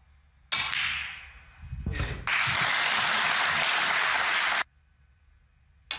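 Audience applause in the snooker arena, starting suddenly about half a second in and fading, then swelling to a steady level and cutting off abruptly near the end, with a sharp click about two seconds in.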